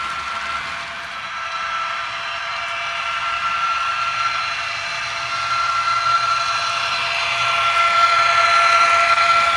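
Märklin model freight train running along the layout: a steady high whine with rolling noise from the wagons, growing louder near the end as the locomotive comes past.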